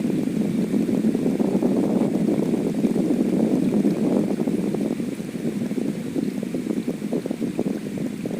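Heavy rain falling in a steady, dense crackling rush.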